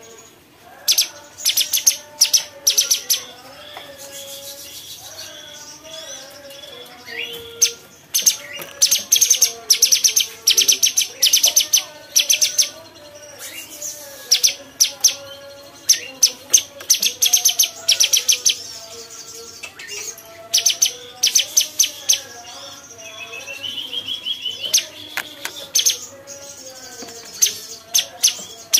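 Cucak cungkok singing: runs of rapid, sharp, high chirps, each a second or two long, broken by short pauses. A softer, lower wavering warble carries on underneath. A short rising trill comes near the end.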